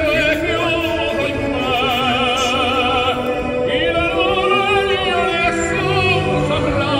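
Background music: operatic singing on long held notes with wide vibrato, over a classical instrumental backing.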